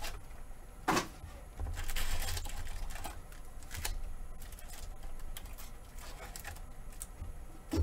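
Cardboard card box being opened and handled by hand: scattered taps and clicks, with a brief rustle about two seconds in.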